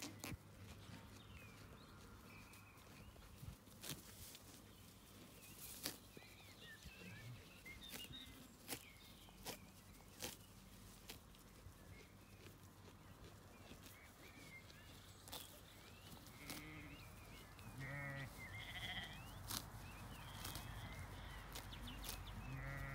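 Zwartbles sheep grazing close by, a short sharp rip each time it tears off a mouthful of grass, with small birds chirping. A sheep bleats twice near the end.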